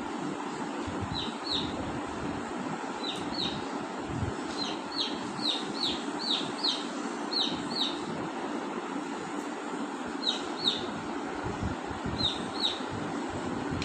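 Parakeets calling: short, sharp calls that fall in pitch, mostly in quick pairs, about fifteen in all with a dense run in the middle, over steady background noise.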